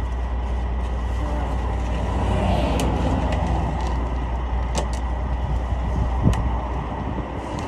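A truck's diesel engine idling as a steady low rumble, with a few sharp knocks and scrapes as a bent rubber mudflap behind the trailer wheels is tugged by gloved hands to bend it back.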